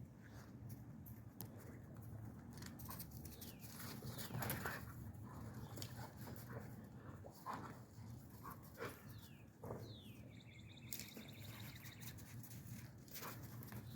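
Dogs playing: faint scuffling and crunching, with a few short, high-pitched whines.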